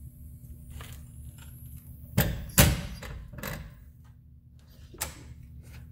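Metal clunks from a floor jack and jack stand as a van is lowered to the ground: two loud knocks a little over two seconds in, the second ringing briefly, a lighter one about a second later and a short click near the end, over a low steady hum.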